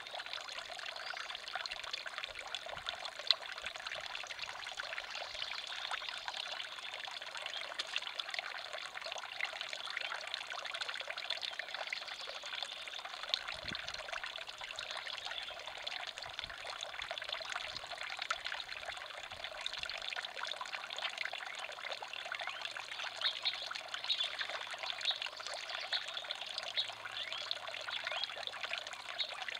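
Garden fountain birdbath trickling steadily, a thin stream of water splashing from the upper basin into the lower bowl. A single sharp tap stands out about three seconds in.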